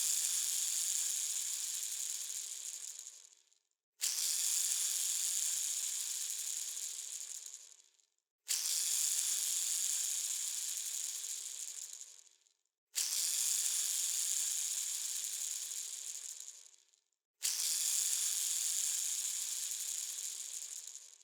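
A bearing is set spinning and whirs down again and again. Each spin starts suddenly with a high, hissing whir and fades out over about four seconds. A new spin starts roughly every four and a half seconds, four times after the first.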